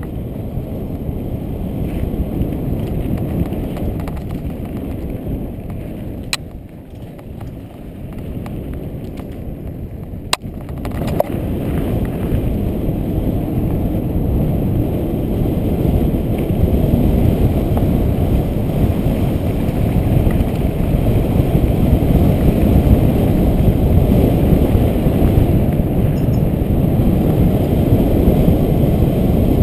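Mountain bike rolling down a dirt fire road: a steady low rumble of wind buffeting a helmet-mounted camera's microphone and tyres running over dirt, with a couple of sharp clicks midway. It eases off for a few seconds and then builds up again as the speed picks up.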